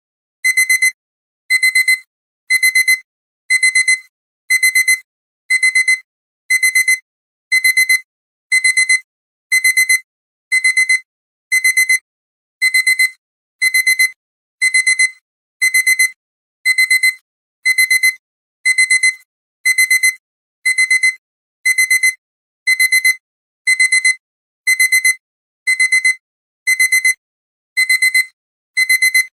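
Alarm clock beeping: short high-pitched bursts of beeps about once a second, repeating steadily without a break.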